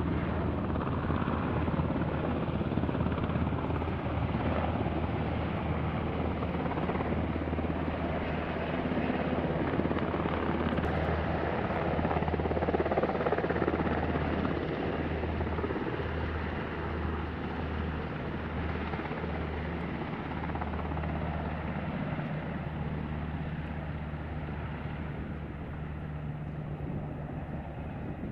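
UH-60 Black Hawk helicopters flying past: a steady, low rotor thrum that grows louder around the middle and eases off toward the end.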